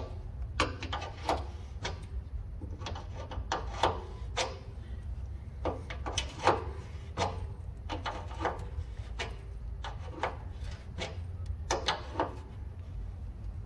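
Wrench clicking and clanking on a brass drain-valve fitting under a diesel tank as the fitting is tightened, in irregular sharp metallic clicks about one or two a second, over a low steady rumble.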